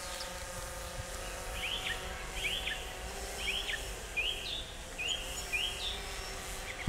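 Steady hum of a quadcopter drone's propellers overhead, with a small songbird repeating a short chirping phrase about seven times through the middle.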